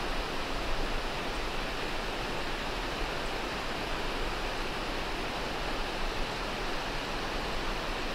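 Creek water rushing over rocks: a steady, unbroken hiss of flowing water.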